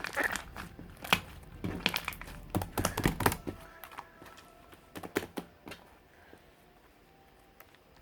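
Mixed slime being squished and pressed by hand, giving sticky clicks, crackles and small pops; busy for the first four seconds, then only a few scattered clicks.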